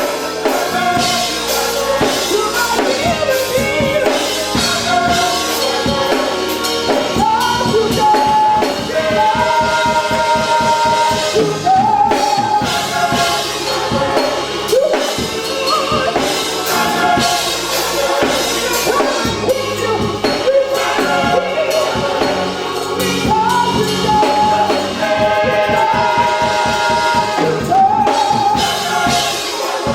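Gospel music played live: singing over a driving drum kit, continuous and loud.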